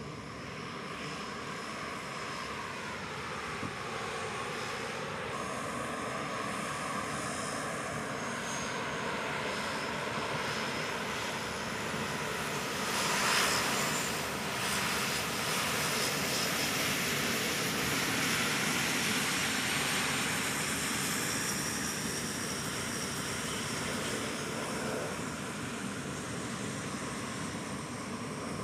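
C-130 Hercules turboprop transport aircraft taxiing past with their four propeller engines running, a steady engine-and-propeller drone. One tone dips in pitch and comes back a few seconds in, and the sound swells to its loudest about halfway through as one aircraft passes closest.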